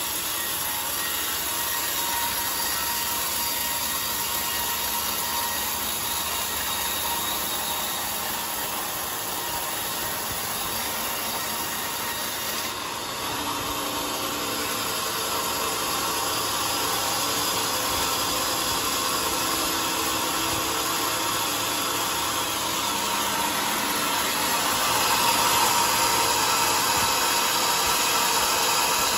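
Large band sawmill cutting through a teak log: the blade runs through the wood with a steady sawing noise, somewhat louder near the end.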